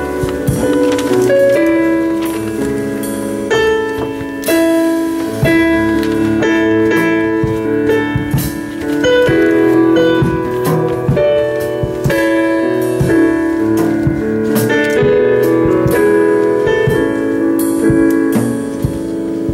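Instrumental music: a keyboard plays held chords that change every second or so, with no singing.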